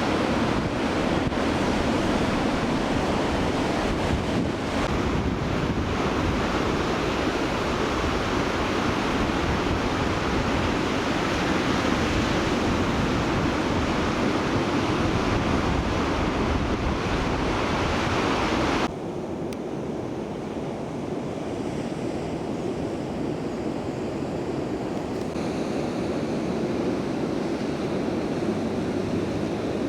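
Ocean surf rushing, with wind buffeting the microphone. About two-thirds of the way through, the sound cuts abruptly to a quieter, duller rush.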